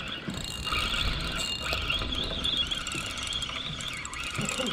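A chorus of frogs calling steadily, a dense mass of high-pitched calls.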